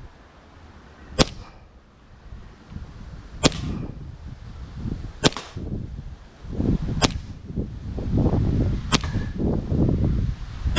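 Five sharp shots from a green-gas-powered Hi-Capa 4.3 gel blaster pistol, fired one at a time about every two seconds.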